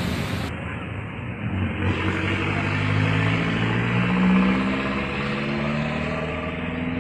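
A road vehicle's engine running and accelerating, its pitch rising over a couple of seconds and then rising again later.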